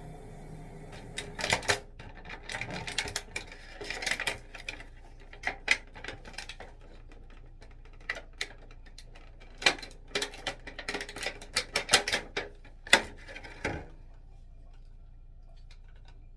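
Irregular clicks and clacks of a small plastic extendable tripod being handled and adjusted, starting about a second in and stopping about fourteen seconds in.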